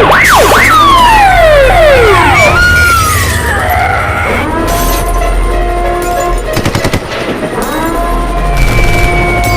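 A chaotic, loud sound-effects mix made for noise-stress training of protection dogs. It opens with a siren wailing up and down, then many overlapping falling whistle-like glides and steady alarm tones, with a brief rapid rattle like machine-gun fire about seven seconds in.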